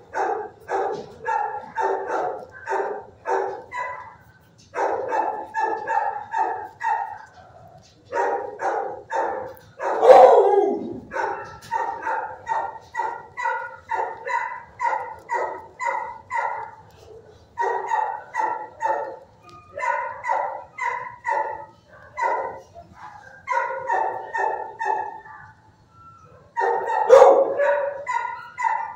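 Barking from dogs in shelter kennels: short barks about three a second, in bouts of a few seconds with brief breaks. One louder, deeper bark comes about ten seconds in and another near the end.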